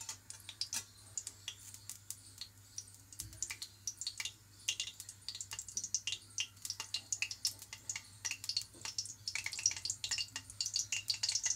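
Hot refined oil crackling and spitting in a kadhai on a gas stove, hot and ready for frying. The pops are irregular and grow denser toward the end.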